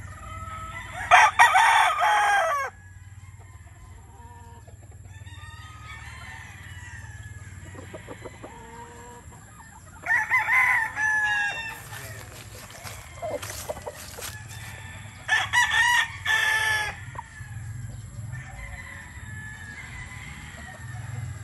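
Young McLean gamecock stags crowing: three crows, each about a second and a half long, with softer clucking between them.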